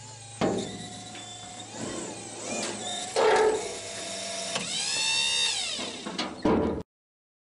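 Electric hydraulic pump motor of a battery-powered helicopter ground-handling dolly running with a steady hum, with squeaky rising and falling tones and a few knocks over it. The sound cuts off abruptly near the end.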